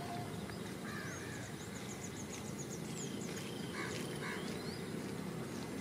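Wetland ambience: a run of quick, faint, high chirps from small birds about a second in, then a few scattered bird calls, over a steady low rumble.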